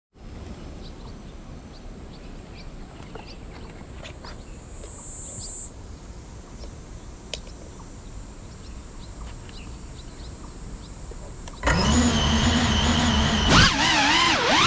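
Cinelog35 FPV quadcopter's brushless motors and propellers spinning up from rest: a faint quiet background with scattered light ticks, then about 12 seconds in a sudden loud, steady whine, whose pitch starts wavering up and down near the end as the drone lifts off.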